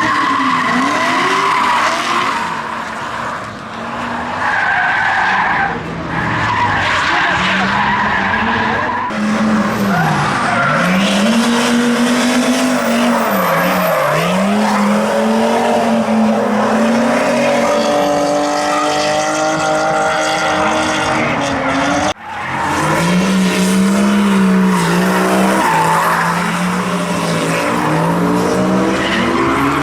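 Drift cars sliding with tyres squealing and engines revving up and down again and again as the drivers work the throttle. The sound breaks off abruptly about three-quarters of the way through, then the engine and tyre noise resumes.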